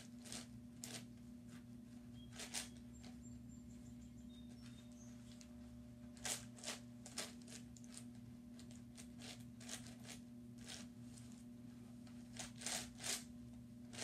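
Plastic clicks of a YuXin 9x9x9 speed cube's layers being turned by hand, coming in irregular runs, sparse at first and quicker from about six seconds in. A steady low hum lies underneath.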